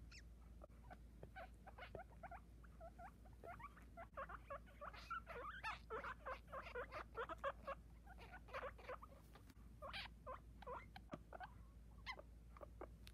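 Newborn guinea pig pup squeaking: many short, high squeaks in quick succession, busiest in the middle.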